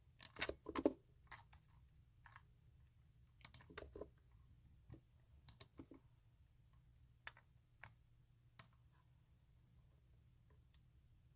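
Computer keyboard keys pressed slowly and irregularly, as sharp clicks in small clusters, denser near the start and thinning to single taps later.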